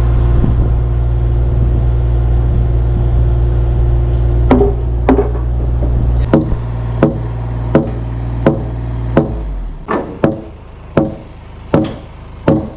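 An engine runs steadily, then about a dozen heavy wooden knocks, roughly one every 0.7 s, begin about four and a half seconds in: a mallet driving green oak frame timbers or pegs home. The engine stops a little past halfway while the knocking carries on.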